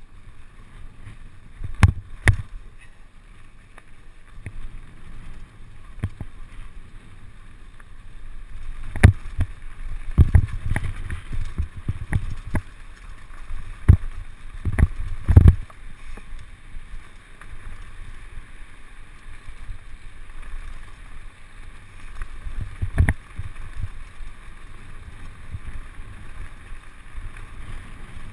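Mountain bike ridden over a rough dirt and stone track, heard from a camera mounted on the bike or rider. Wind and tyre rumble run steadily under it, with sharp knocks and rattles as the bike hits bumps and stones, the loudest cluster about nine to fifteen seconds in.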